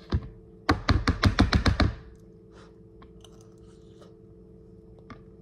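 A quick run of about ten knocks over a little more than a second, then a steady low hum with a few faint ticks.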